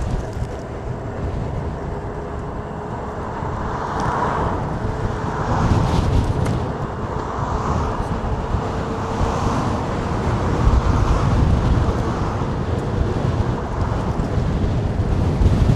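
Strong gusting wind buffeting the microphone in a heavy low rumble, with road traffic passing.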